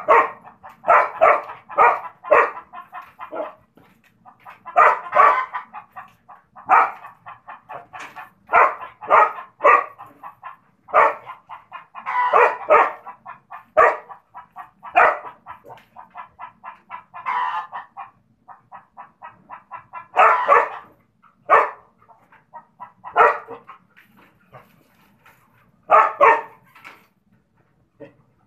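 Dog barking at a rooster in quick clusters of several barks, with short pauses between the clusters.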